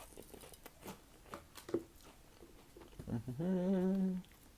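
Close-up mouth sounds of someone chewing crunchy chips, with scattered small crunches, followed about three seconds in by a held, hummed "mmm" lasting about a second.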